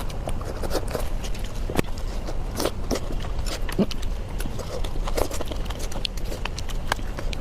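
Close-miked eating: irregular crunchy bites and wet chewing clicks, several sharp crunches a second over a low steady hum.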